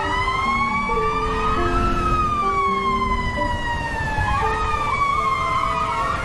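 Ambulance siren wailing, its pitch rising and falling slowly over several seconds, over a steady low rumble of road noise.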